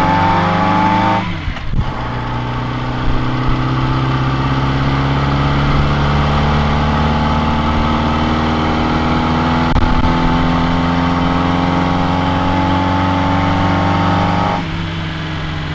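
Reliant Regal three-wheeler's small four-cylinder engine pulling on the move, heard from inside the cabin and quite noisy. Its pitch climbs, drops sharply at a gear change about a second and a half in, then rises slowly for a long stretch before falling as the throttle eases near the end.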